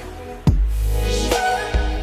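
Background electronic music: a melody of stepped notes over deep bass hits, two of which land about half a second in and near the end.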